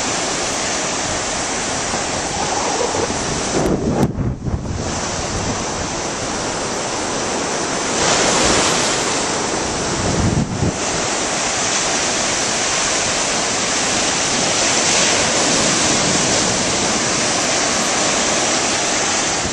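Ocean surf breaking on a sandy beach: a steady rush of crashing waves and foam, with wind buffeting the microphone.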